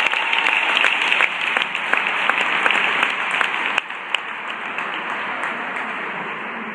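Audience applauding, with sharp individual claps standing out close by, about two or three a second. The applause fades gradually from about four seconds in.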